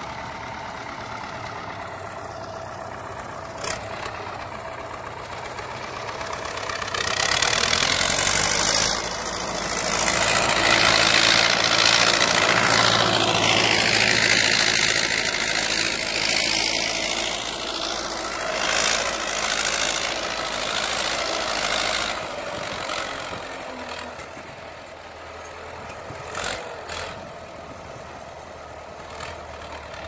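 Belarus MTZ-50 tractor's four-cylinder diesel engine running under load while it pulls a plough through the soil. It grows louder as the tractor passes close by, then fades as it moves away.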